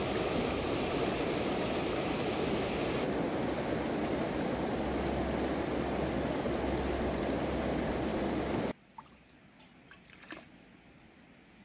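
Steady rushing of river water. It cuts off abruptly about nine seconds in, leaving quiet with a few faint clicks.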